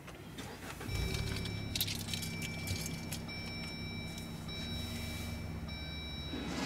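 Car engine starting about a second in, then idling with a steady low hum.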